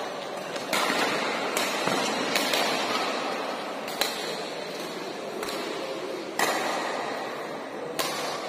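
Badminton rally: rackets striking the shuttlecock in a run of sharp smacks about once a second, one of them a jump smash about four seconds in, over a steady background hum of the hall.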